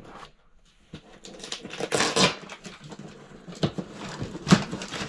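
Cardboard heater box being handled and its taped flaps pulled open: a loud ripping rustle about two seconds in, then two sharp knocks against the box near the end.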